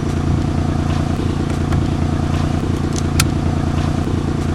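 Car engine running steadily, heard from inside the cabin, with a single sharp click about three seconds in.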